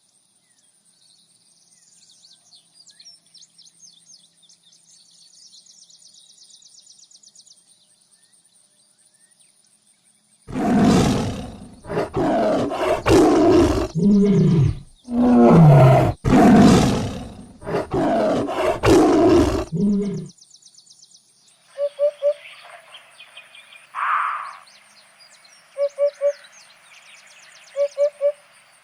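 A large animal roaring: a run of loud, rough roars lasting about ten seconds, coming after faint high chirping. Quieter short calls repeat several times near the end.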